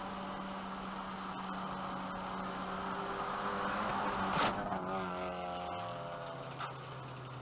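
Race car engine running at steady high revs, heard from inside the stripped cabin. A single sharp bang comes about four and a half seconds in, fitting the car's side contact with a Porsche 944, and the engine revs then fall and settle lower.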